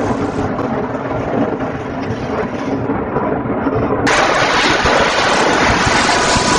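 Two-unit abrasive-belt lacquer sanding machine running: a steady machine hum and rush of motors, belts and blowers, which turns suddenly louder and hissier about four seconds in.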